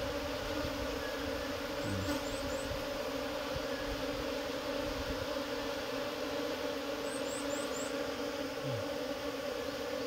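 A swarm of Korean native honeybees (Asian honeybees) humming steadily as the cluster crawls into a new hive box, a swarm being hived.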